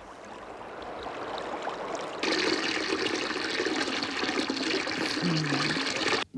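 Water gushing and spraying from a bathroom tap into an overflowing sink, swelling over the first two seconds, then jumping to a heavier rush that cuts off suddenly just before the end.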